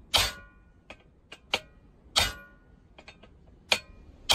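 Hammer driving a sharp chisel into a compressor's metal shell to cut a first hole in it. Three heavy blows about two seconds apart, each ringing briefly, with lighter taps in between.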